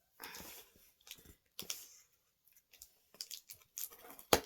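Plastic parcel packaging being torn open and crinkled by hand, in short irregular rustling bursts with brief pauses between.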